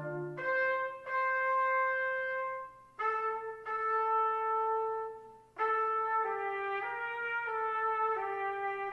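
Brass instruments playing music: slow phrases of held notes, several sounding together, with short breaks about 3 and 5.5 seconds in.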